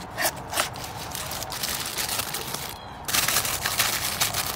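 Cardboard packaging clicking and sliding as the tray comes out of a toy box, then thin tissue paper crinkling as an action figure is unwrapped, loudest from about three seconds in.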